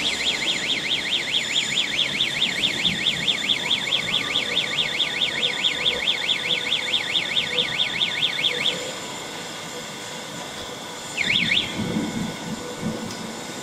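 Electronic warning alarm on a grab material handler, a rapid warbling tone sweeping up and down, cuts off about nine seconds in. A short burst of the same warble comes back a couple of seconds later over a low machinery rumble.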